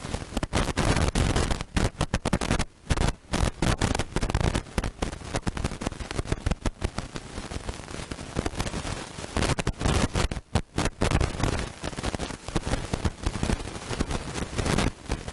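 Wind buffeting the camera microphone: a loud, rough rushing that swells and drops irregularly, with brief lulls about three and ten and a half seconds in.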